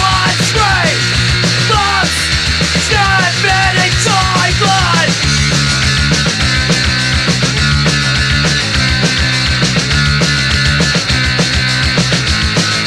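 Punk rock music with no singing: a full band with drums, a sliding lead line over the first five seconds or so, then steady held chords.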